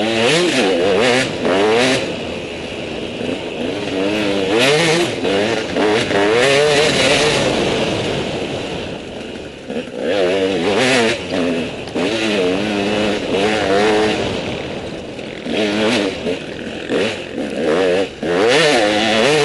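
KTM 200 EXC's single-cylinder two-stroke engine revving up and dropping back again and again as the dirt bike is ridden hard through tight trail sections. Knocks and clatter come from the bike over rough ground.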